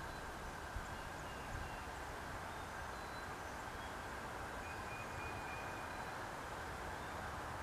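Steady outdoor background noise, a low rumble with a hiss over it, with faint short high chirps now and then and a small tap about a second in. The skunk's feeding is not heard over it.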